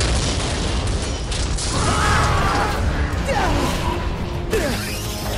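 Animated action sound effects: a heavy, continuous low rumble of the wall breaking apart and debris crashing, with several falling whistle-like tones in the second half.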